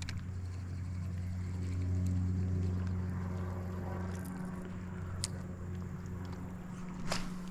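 Electric trolling motor on a fishing boat humming steadily at a low pitch, with a couple of sharp clicks about five and seven seconds in.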